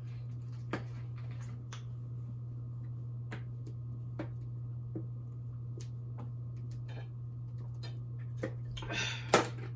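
Quiet room tone with a steady low hum and scattered faint clicks and taps, with a brief louder rustle near the end.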